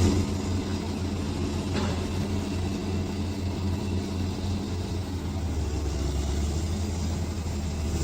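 Bulldozer's diesel engine running steadily at low revs, a deep even drone with a faint pulsing.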